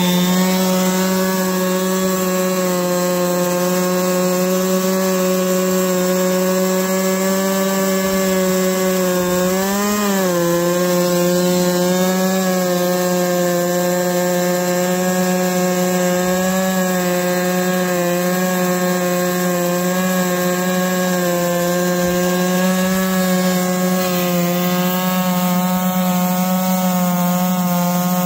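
Holzfforma G660 chainsaw, a Stihl MS 660 clone with a two-stroke engine, running flat out under load as it rips lengthwise through Eastern red cedar in a chainsaw mill. The engine note holds steady through the cut, rising briefly and settling back about ten seconds in.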